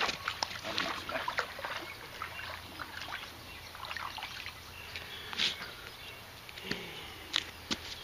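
River water splashing and sloshing at the edge of a concrete bank: a run of small, irregular splashes.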